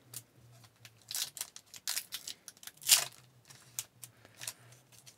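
Foil wrapper of an Upper Deck hockey card pack being crinkled in the hands and torn open across the top. It is a run of short crinkles and rips, with the loudest tear about three seconds in.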